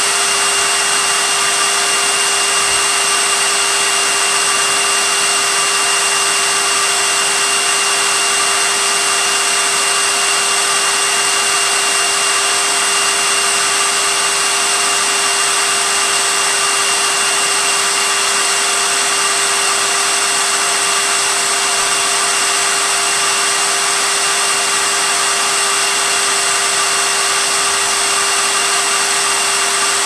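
Vacuum cleaner running steadily: a constant rush of air with a motor whine held at a few fixed pitches, never changing in level.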